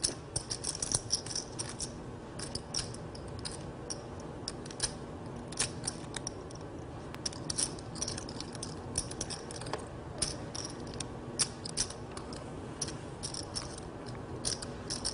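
Poker chips clicking against each other as a player handles and stacks them at the table: a long run of irregular, sharp clicks.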